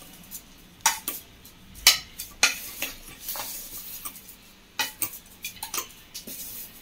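A steel spoon stirring and scraping coarsely ground peanuts and sesame seeds in a stainless-steel mixer-grinder jar, with irregular sharp clinks of the spoon against the jar's side and bottom.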